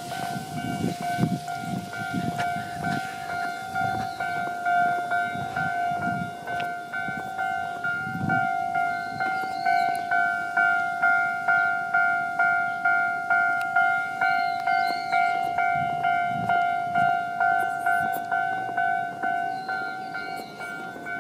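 Electronic level-crossing alarm bell ringing in a steady, regular rhythm, a sign that the crossing is closed for a train. A train rumbles over the crossing under it in the first several seconds.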